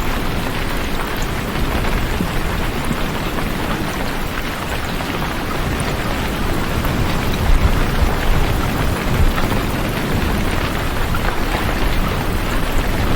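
Steady rain: an even, unbroken hiss with a low rumble underneath.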